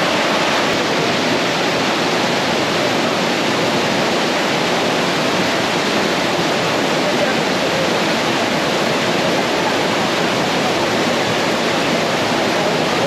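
Waterfall water pouring and splashing over rocks, a loud, steady rush.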